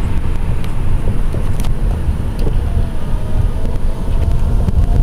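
Steady low rumble of engine and road noise heard inside a moving car's cabin.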